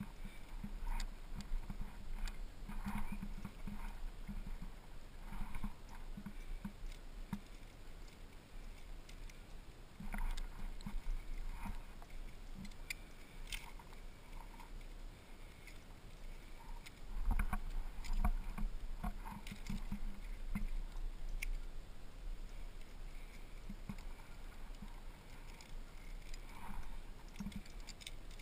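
A rock climber moving up granite: irregular scuffs and soft knocks of hands and rock shoes on the rock, mixed with the clinking of cams and carabiners on the harness rack. A louder cluster of knocks and clinks comes about two-thirds of the way through.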